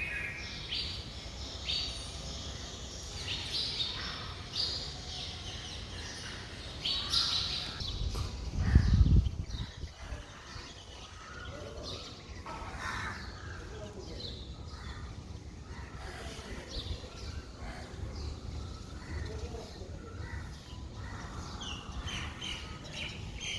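Many birds calling and chirping in short, scattered calls over a steady outdoor background. A brief low rumble comes about nine seconds in.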